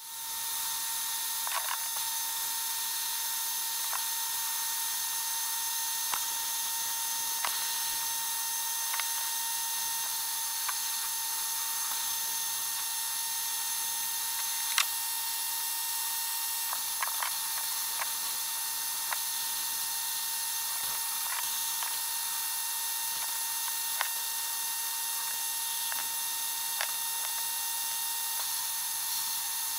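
Abrasive-blast cabinet gun hissing steadily as it strips paint from pressed-steel toy car parts, with scattered sharp ticks through the hiss.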